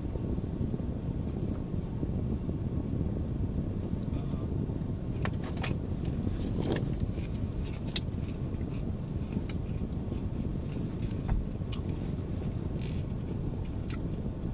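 Steady low rumble of a car idling, heard from inside the cabin, with a scattering of small clicks and crinkles from handling food and a sauce cup.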